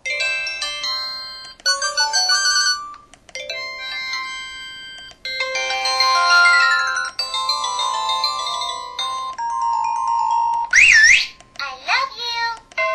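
A string of short electronic ringtone melodies and sound-effect jingles from an LG-SD860 mobile phone, played one after another with brief breaks between them. About eleven seconds in, one effect is a warbling tone that sweeps up and down in pitch.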